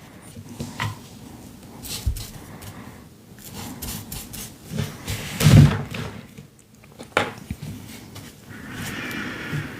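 Hand work on a paper collage: scattered light taps and rustles of paper and brush, a louder knock about five and a half seconds in, and a steady rubbing near the end.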